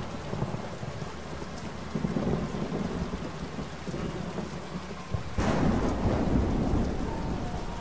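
Heavy rain pouring down with low rolling thunder, which swells louder about five and a half seconds in.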